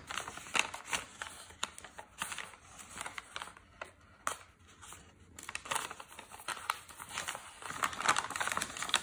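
A paper bag being unfolded and opened by hand: irregular crisp rustles and crinkles of stiff paper, busiest a little before the end.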